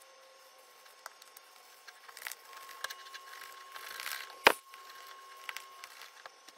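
A utensil scraping and knocking against a glass mixing bowl while stirring a thick, sticky dip. It makes scattered clicks and scrapes, with one sharp clack about four and a half seconds in.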